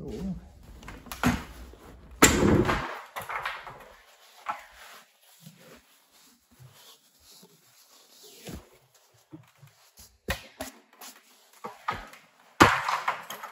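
Handling noises of a car seat being stripped: the cloth cover and foam rustle and scrape as the cover is pulled off the backrest, with a few short sharp clicks or knocks. The rustling is loudest about two seconds in and again near the end.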